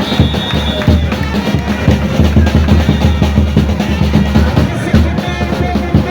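Drums playing a fast, busy rhythm of closely spaced strokes, heavy in the low end.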